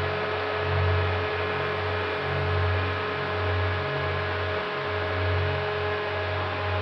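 Bixler 3 RC plane's Turnigy Aerodrive SK3 1500kv brushless outrunner motor and propeller running at a steady throttle, an even whine with several pitches, over a low pulsing rumble.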